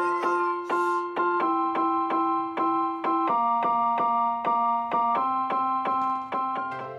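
Background music: a keyboard playing repeated chords at a steady quick pulse, the chord changing every couple of seconds.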